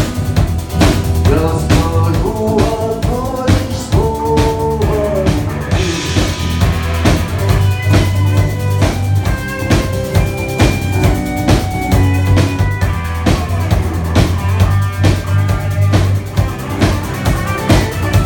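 Rock band playing an instrumental passage: a drum kit keeps a steady beat with rimshots and bass drum, over bass and melodic instrument lines, without vocals.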